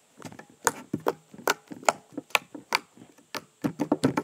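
Homemade borax slime clicking and popping as a hand presses and squeezes a thick clump of it: a string of sharp pops, about two or three a second, irregularly spaced. Worked in a thick clump rather than a thin layer, the slime gives off more of these pops.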